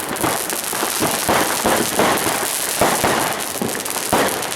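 Fireworks and firecrackers going off all around in a dense stream of crackles and bangs, with several louder bangs standing out about a second in, at two seconds and again near the end.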